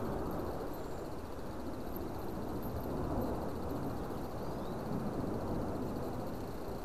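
Strong, gusty wind rushing, swelling and easing every few seconds.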